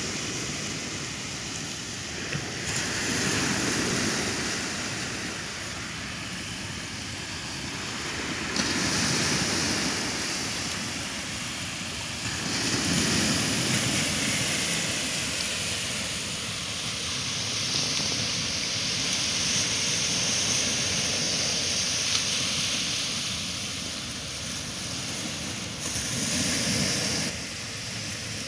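Lake Michigan surf: small waves breaking and washing onto a sandy beach, the rush swelling and easing every few seconds.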